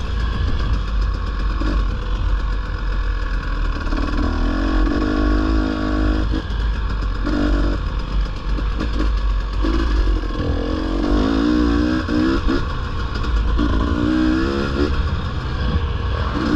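Dirt bike engine revving up and down in several bursts while riding over rocks, over a steady low rumble.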